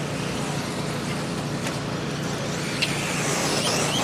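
Radio-controlled 2WD buggies racing on an off-road track: a steady wash of motor and tyre noise, with high-pitched motor whines rising and falling near the end. A single sharp click about three seconds in.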